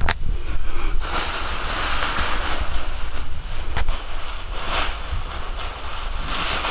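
Thin plastic bag crinkling and rustling as a cat bites and paws at it, with a couple of sharper crackles.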